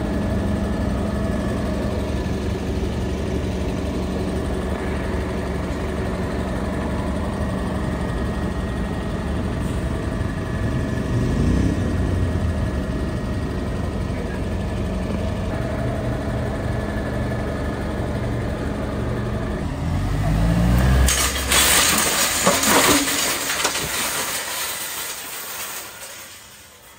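Heavy armoured police vehicle's engine running steadily, rising in pitch briefly near the middle and again about three-quarters through as it is revved. A loud rushing noise follows, then the sound fades away near the end.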